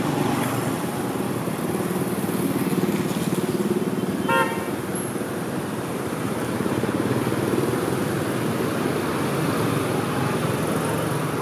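Street traffic with motorbike engines running close by, a steady rumble. A single short horn beep sounds about four seconds in.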